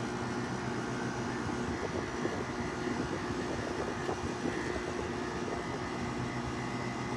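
Haier 5,200 BTU window air conditioner running, its compressor and fan giving a steady, constant hum. The coils are slow to get cold, which the owner thinks may mean it is low on refrigerant charge.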